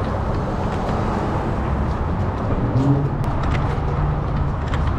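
Steady rumble of a car on the move: road and engine noise with a low hum that grows a little stronger about halfway through.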